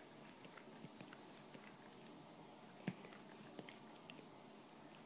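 Faint, scattered soft clicks and ticks from a Newfoundland dog and a cat moving close together, the loudest about three seconds in, over quiet room tone.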